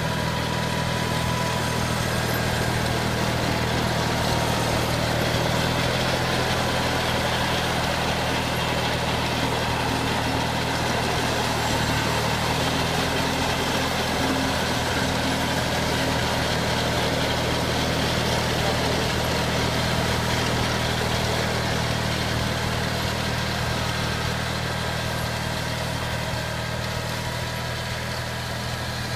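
Garden tractor engine running at a steady speed as the tractor drives on chained tires with a front-mounted snowblower.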